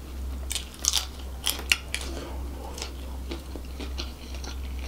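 Close-miked chewing of a mouthful of seafood fried rice, with sharp crunches and mouth clicks, densest in the first two seconds and softer after.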